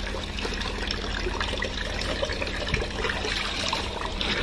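Tap water running steadily into a laundry sink, with the sloshing of clothes being washed by hand in it.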